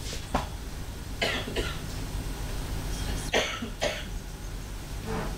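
A man coughing several times, the coughs coming in short pairs with gaps of a second or two between, over a faint low hum.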